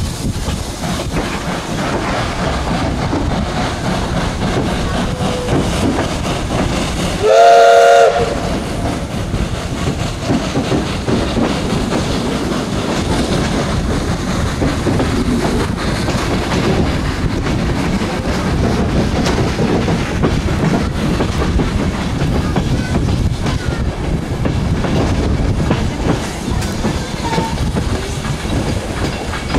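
Train wheels running steadily over the track, heard from an open window of one of the coaches behind steam locomotive 46.03. About seven seconds in, the locomotive's steam whistle sounds once, a short chord-like blast under a second long and the loudest thing heard.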